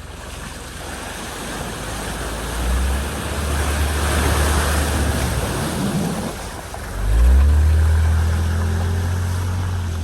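A vehicle driving through deep floodwater: water rushing and spraying, loudest around the middle, over a low engine drone, with the engine revving up about seven seconds in.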